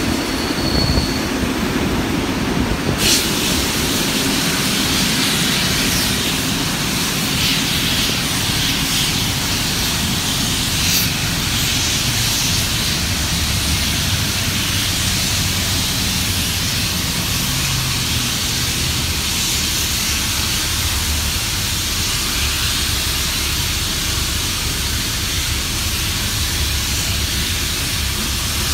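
Steam-hauled heritage train running along the line, heard from a carriage window: a steady rumble of wheels on rails, with a rushing hiss that comes in about three seconds in.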